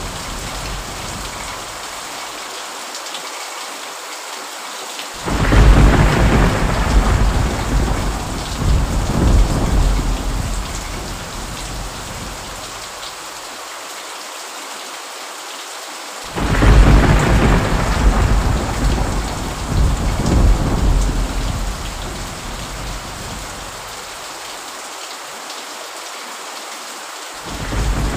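Thunderstorm: steady rain with thunder. A sudden loud thunderclap comes about five seconds in and another around sixteen seconds, each rumbling away over several seconds, and a third begins at the very end.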